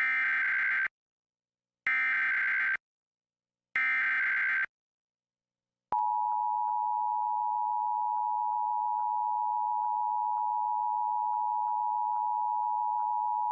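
Emergency Alert System SAME header: three short bursts of warbling digital data tones, about two seconds apart. About six seconds in comes the steady two-tone EAS attention signal, which begins the next monthly test broadcast.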